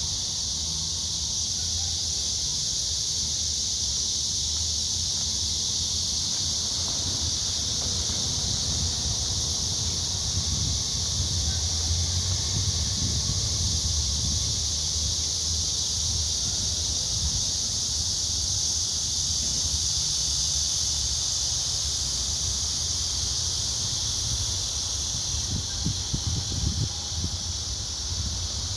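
A steady, unbroken chorus of insects singing in a high band, over a low rumble that comes and goes unevenly near the end.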